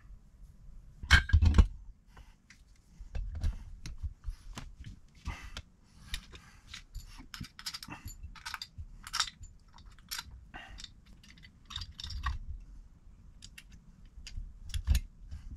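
Small metal parts of a Holley four-barrel carburettor clicking and clinking as they are handled and fitted together on a bench, with louder knocks about a second in and near the end.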